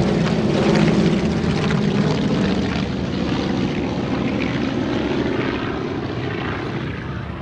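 Propeller-driven warplanes flying low overhead, their engines a steady drone that slowly fades.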